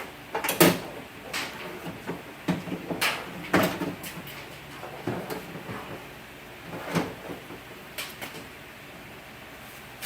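Irregular clunks and knocks as a window regulator and motor assembly is handled and worked into a car door's inner shell. The loudest knock comes about half a second in.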